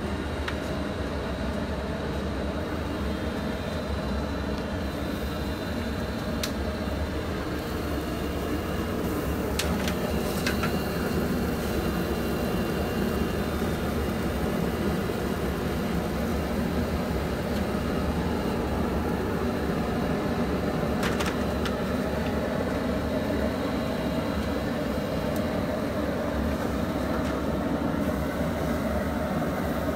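A steady mechanical rumble with a hum, with a few light clicks or taps about 6, 10 and 21 seconds in.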